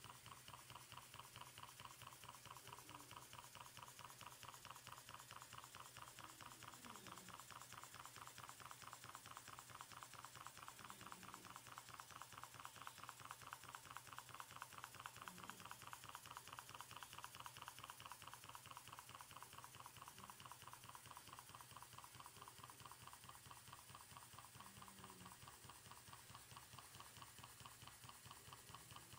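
Twin-cylinder steam engine running at a steady speed, heard faintly as a fast, even beat of exhaust chuffs and clicks, several to the second.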